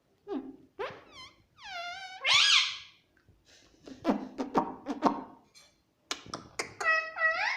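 Pet parrot calling and chattering: a few pitched calls that dip and rise, a burst of clicky chatter in the middle, then a run of repeated warbling calls near the end.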